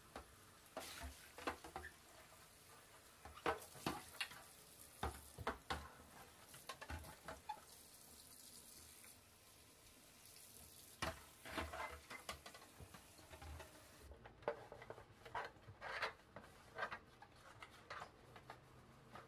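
Tap water running faintly into a stainless steel sink while a plastic cutlery tray is rinsed, with scattered knocks and clatters of the tray being handled against the sink. The running water stops about three-quarters of the way through, leaving a few more knocks from handling.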